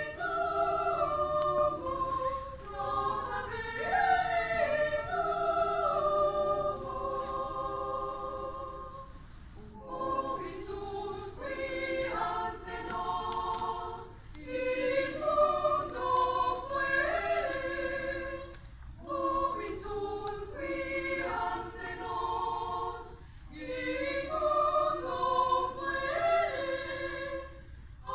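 A choir singing a slow piece in several parts, phrase by phrase, with short breaks between phrases.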